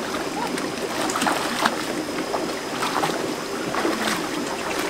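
Shallow rocky stream running, with several splashes from feet wading through the water.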